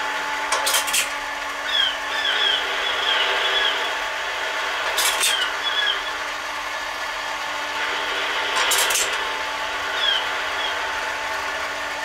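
Lionel model railroad lighthouse accessory playing its ocean sound effect: a steady surf-like hiss with short falling chirps, over a steady electrical hum from the layout. Three short bursts of clicking come through about four seconds apart.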